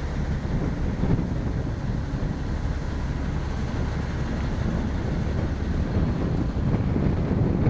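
Kayoola diesel coach running, a steady low rumble with wind noise on the microphone.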